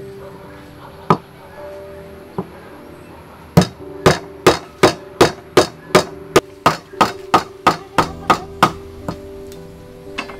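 Cleaver chopping on a thick wooden chopping block as limes are cut: two single chops, then a quick run of about three chops a second for several seconds.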